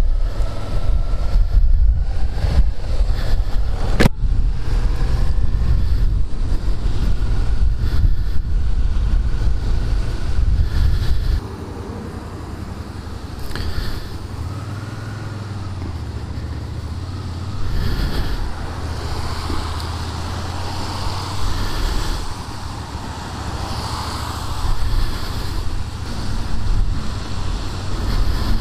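Suzuki SFV650 Gladius V-twin motorcycle ridden on a wet road, heard from a microphone inside the rider's helmet: wind rush and engine at speed. About eleven seconds in it quietens as the bike slows in traffic, leaving the engine's low steady running under a softer hiss. A single sharp click comes about four seconds in.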